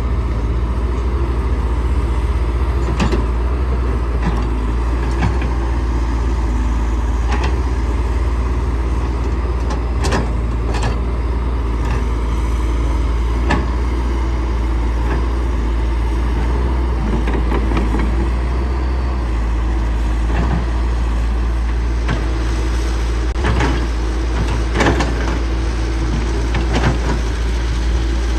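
Caterpillar 312C excavator's diesel engine running steadily under load, with occasional sharp knocks and clanks scattered through it.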